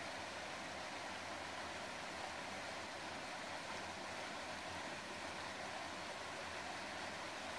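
Flowing water rushing steadily, an even, unbroken hiss.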